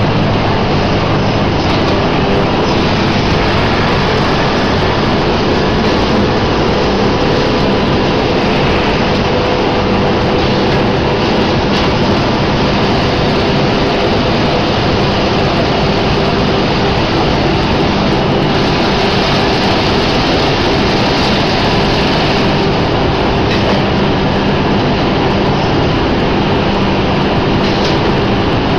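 Mustard greens packaging machine running steadily: a constant mechanical noise with a low hum under it, unchanging throughout.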